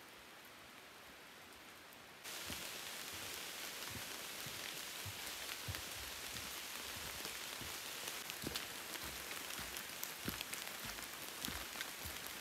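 Light rain pattering through the forest canopy, thick with close, sharp drop ticks and soft low thuds. It cuts in abruptly about two seconds in, after a faint steady hiss.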